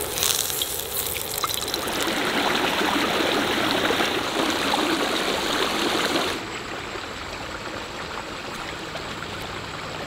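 Battered fish fillets sizzling and crackling in hot oil in a cast-iron skillet, then, about two seconds in, a creek rushing over rocks close up. About six seconds in the rushing cuts off suddenly to a quieter steady creek babble.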